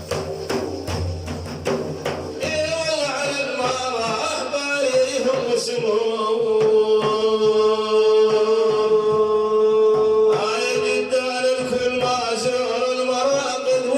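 Arabic Sufi devotional chant in praise of the Prophet: a male voice sings, holding one long ornamented note for several seconds. Drum beats accompany the singing for the first two seconds or so.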